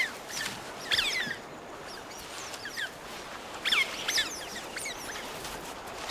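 Smooth-coated otters giving quick runs of short, high-pitched squeaks and chirps, about a second in and again around four seconds in, over a faint steady hiss.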